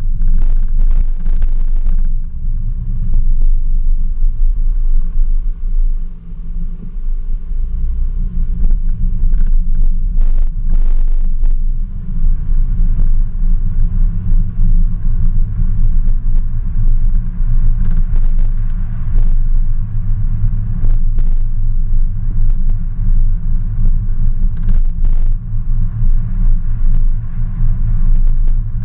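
Car engine running with a deep, steady rumble as the car cruises slowly, picked up by a microphone on its hood, with occasional short bursts of noise over it.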